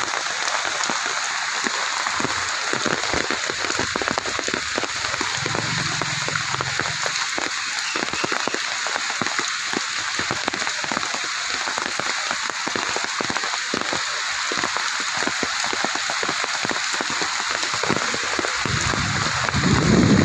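Heavy rain falling steadily on wet paving and open lake water, an even hiss full of fine drop impacts. A low rumble swells under the rain near the end.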